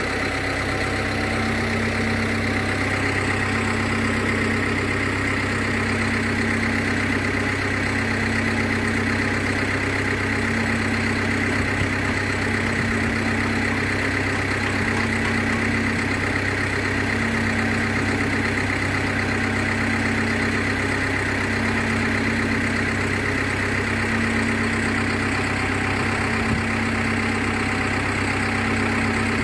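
Engine running steadily at an even speed, with a constant hum and a thin high whine above it.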